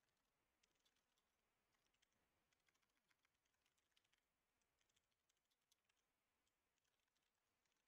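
Very faint computer keyboard typing: quick, irregular runs of key clicks as code is entered.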